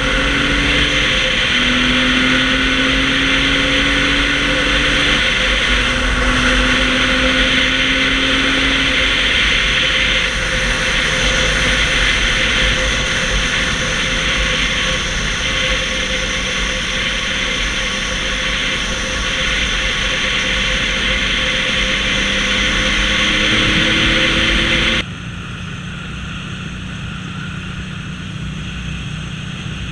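1979 Yamaha XS750 three-cylinder engine through a MAC 3-into-1 exhaust, pulling under way with its pitch climbing and dropping back at each gear change, over heavy wind noise. About 25 seconds in the sound drops suddenly to a quieter, steady drone.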